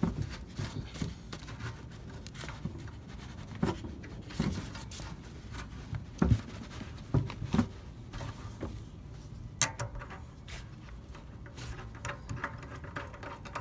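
Irregular light clicks and knocks of hand work, fitting a new lower radiator hose, with a few louder knocks in the middle.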